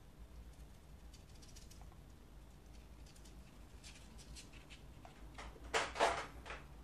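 Faint, light scratchy taps of a sword liner brush dabbing watercolour onto paper, then two quick louder scrapes about six seconds in as the brush is moved away from the paper.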